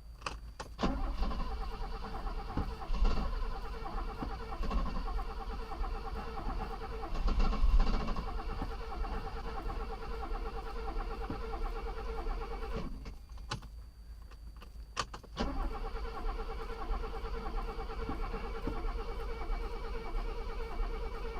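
A Mercedes-Benz 250S straight-six being cranked on its starter without catching. The cranking stops for a couple of seconds partway through, then starts again. The owner takes the failure to start for flooding from a fuel pump that is too strong.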